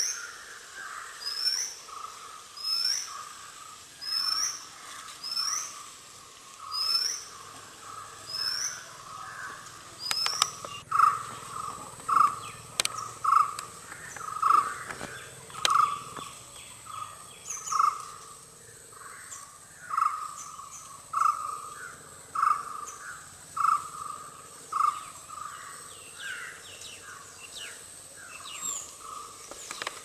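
Wild birds calling in the forest. A high, rising, hooked note repeats about once a second through the first third, and a lower call repeats about once or twice a second throughout, with a few sharp clicks about ten seconds in. A steady high insect drone runs underneath.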